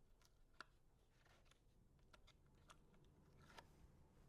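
Near silence, with a few faint ticks and rustles of cardstock and tape liner being handled as the liner is peeled off double-sided tape.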